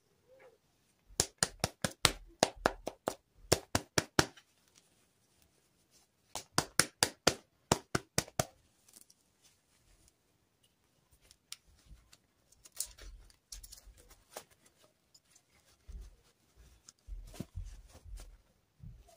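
Hands handling a plastic fashion doll and its fabric dress: two runs of quick, sharp clicks and taps in the first half, then scattered fainter clicks and a few low bumps.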